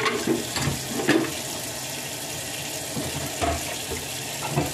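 Tap water running steadily into a kitchen sink while tied crabs are washed by hand, with a few sharp knocks and splashes as the shells are handled.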